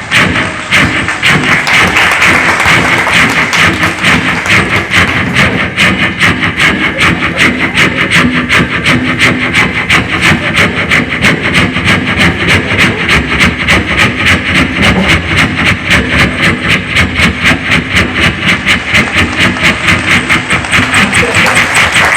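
A man imitating a coal-fired steam locomotive with his mouth: hissing, rhythmic chuffs of a train pulling away and picking up speed, settling into a fast, even beat.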